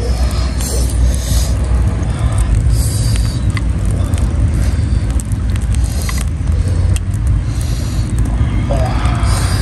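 Wind buffeting the microphone as a steady low rumble, with a few light clicks and scrapes from handling the food.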